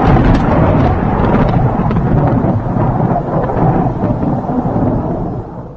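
Loud, continuous deep rumble like thunder, an edited-in outro sound effect, fading out at the end.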